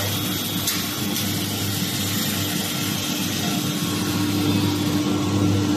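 Automatic CNC wood lathe for wooden handles running with a steady machine hum while its feeder moves a pair of blanks into place; a single click sounds about a second in.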